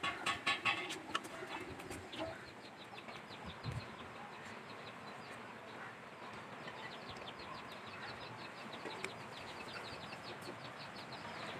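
A metal serving spoon scraping and clinking against an aluminium pot and plate during the first second or so as sweet vermicelli is ladled out, then a faint, rapid run of high bird chirps continuing in the background.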